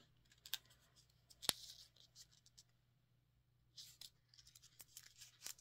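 Faint rustling and light ticks of a miniature storybook's pages being handled and turned by hand, with one sharper click about a second and a half in.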